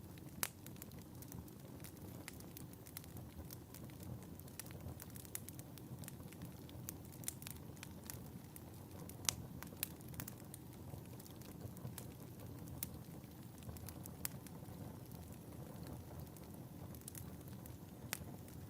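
Wood fire burning in a fireplace: a low steady rumble of flame with irregular sharp crackles and pops, a couple of them louder, about half a second in and about nine seconds in.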